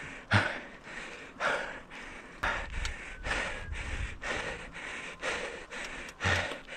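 A cyclist breathing hard and deeply, about one breath a second, from the effort of climbing a very steep road grade on a mountain bike.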